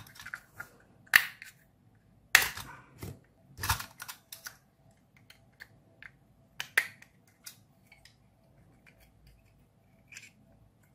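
Sharp plastic clicks and cracks as a knife blade pries apart the glued seam of a plastic phone charger case, with four louder snaps among lighter ticks of the blade and case being handled.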